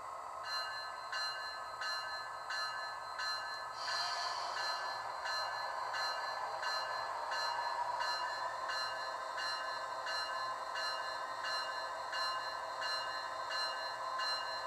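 A Rapido model Amtrak F40PH locomotive's sound decoder playing its diesel engine running, with the locomotive bell ringing steadily, about one stroke every 0.7 seconds. A short hiss of air about four seconds in.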